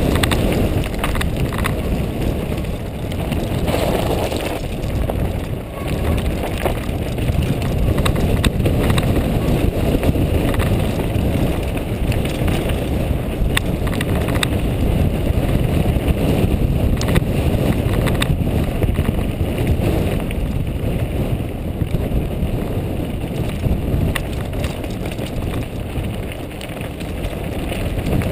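Wind buffeting the microphone of a helmet camera on a mountain bike riding fast downhill, over a steady crunch of tyres on loose stones and gravel, with frequent sharp rattles and knocks as the bike jolts over rocks.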